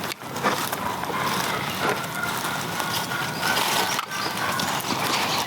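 Wooden box turkey call scraped in a run of raspy, continuous yelping to strike up a gobbler, with a brief break about four seconds in.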